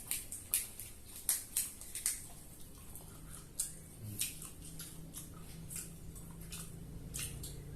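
Close-up eating sounds: chewing and lip-smacking on fried chicken cartilage, a series of short, sharp crunches and mouth clicks at an irregular pace.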